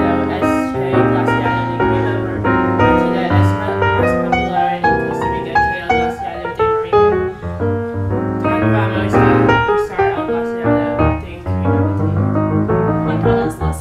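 Background piano music made of many quick notes.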